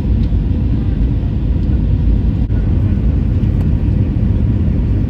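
Airbus A320 airliner noise: a steady, loud low rumble of jet engines and airflow.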